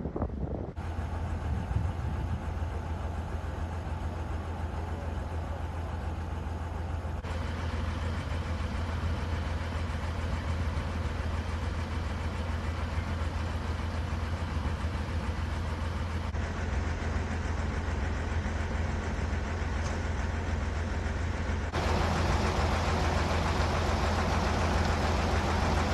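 An engine running steadily at idle, a constant low hum with noise above it, changing abruptly several times as the shots change.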